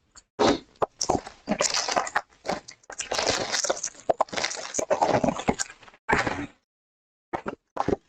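Plastic shrink wrap crinkling and tearing in a run of irregular crackles as a sealed trading card hobby box is unwrapped. It stops about six and a half seconds in, followed by a few light taps.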